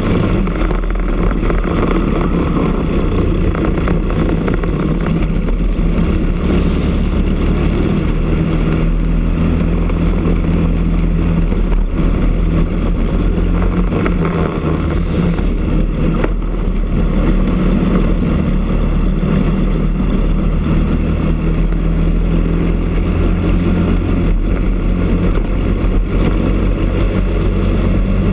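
Briggs & Stratton LO206 single-cylinder four-stroke kart engine heard onboard at racing speed, running hard at high revs. The revs ease off briefly about midway through a corner and then climb again.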